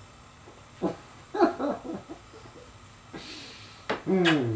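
Alaskan Malamute making short, low, drawn-out vocalizations while being hugged: one about a second in and a louder one near the end that slides down in pitch, with a breathy huff just before it.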